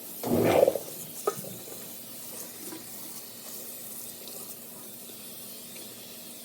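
Water running steadily, with a short louder burst about half a second in and a click just over a second in.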